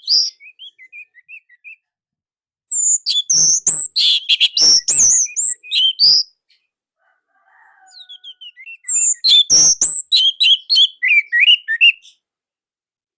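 Orange-headed thrush singing: two loud phrases of rapid, varied whistled notes with sharp, quick chips, separated by pauses, after a few soft quiet notes at the start.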